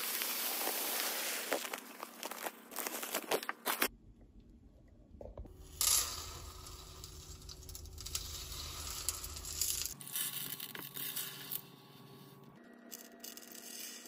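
Coarse dishwasher salt crystals pouring out of a plastic bag into a glass measuring jug, a dense hiss with the bag crinkling. This stops about four seconds in. Then salt is poured from the jug through a plastic funnel into the dishwasher's salt reservoir, another grainy hiss that grows quieter near the end.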